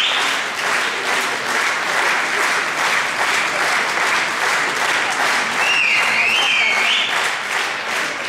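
Audience applauding steadily, with a few short high rising tones over it about six seconds in.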